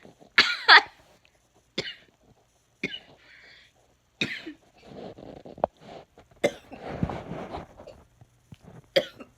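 A string of short coughs, one every second or two, the first and loudest with a high, squeaky pitch, and a longer rough, breathy stretch in the middle.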